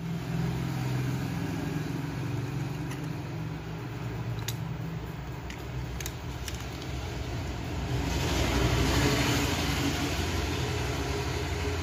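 A steady low mechanical hum runs under a few small clicks as the Nokia 105's LCD and circuit board are handled and pressed together. About eight seconds in, a hiss rises over the hum.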